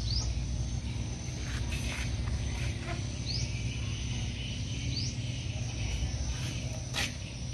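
Steady outdoor background with a low hum, a thin high whine and a few short rising chirps, over which come several light clicks and taps of ceramic tiles being set and adjusted on a metal table frame, the sharpest about seven seconds in.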